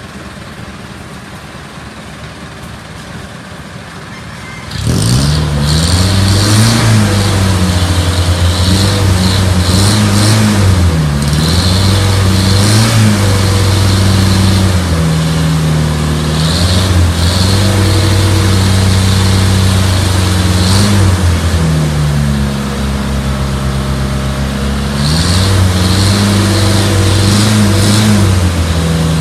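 Diesel vehicle engine idling quietly, then revved hard from about five seconds in: its pitch climbs and falls back several times, with a few steadier stretches held at higher speed. The repeated revving is a free-acceleration smoke test of the exhaust.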